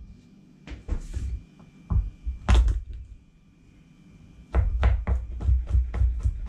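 A few scattered knocks of things set on a plastic chopping board, then a chef's knife chopping garlic on the board from about four and a half seconds in, about four or five quick cuts a second.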